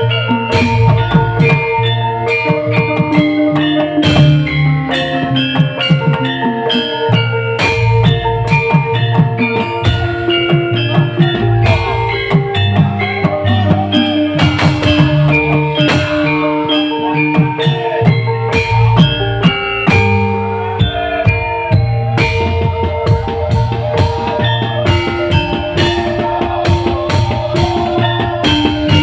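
A live band playing instrumental music, with a drum kit keeping a steady beat under guitar and other melodic instruments.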